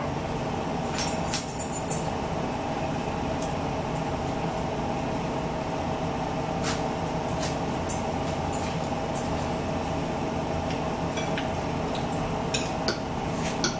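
Forks clinking and scraping against dinner plates, a few light clicks here and there, over a steady droning hum with a constant tone.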